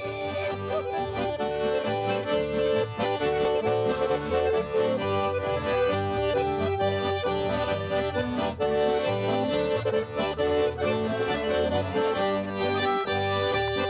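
Swiss folk music played on Schwyzerörgeli diatonic button accordions together with a larger button accordion: held, chord-backed melody notes over a steady pulsing bass.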